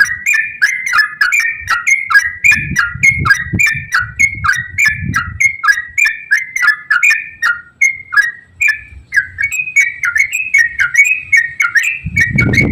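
Yellow-vented bulbul singing a fast, unbroken run of short chirping whistled notes, about three a second. A louder, rougher low sound comes in underneath near the end.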